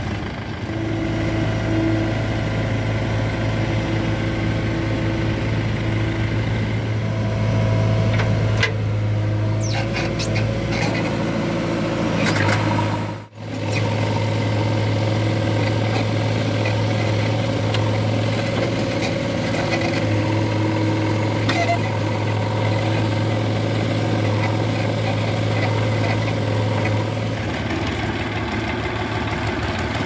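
Diesel engines of a backhoe loader and a farm tractor running steadily at low revs, with a few knocks of the bucket and soil about ten seconds in. The sound drops out briefly about thirteen seconds in.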